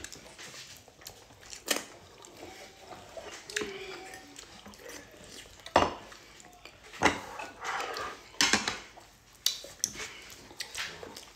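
Eating by hand from plates of swallow and soup: scattered sharp clicks and knocks of the plates and hands working the food, with mouth noises from eating. The loudest knock comes about six seconds in.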